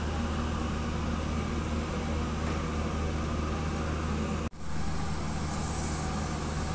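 Steady low engine hum of heavy machinery, broken by a sudden brief dropout about four and a half seconds in; after it, a slipform concrete paver's diesel engine running steadily as the paver crawls slowly along.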